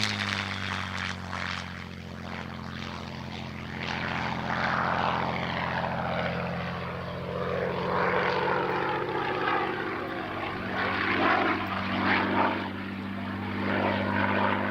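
Supermarine Spitfire Mk IX in flight, its Rolls-Royce Merlin V12 engine and propeller making a steady drone at a distance, with a rushing sound over it that rises and falls.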